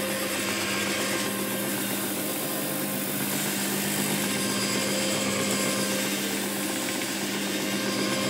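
Encapsulation carpet cleaning machine running steadily as it is pushed across carpet tiles: a constant motor hum over a broad scrubbing hiss.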